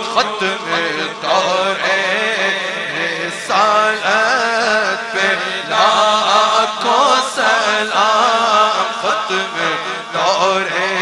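A voice chanting a melismatic devotional melody, its pitch wavering and gliding, over a steady drone.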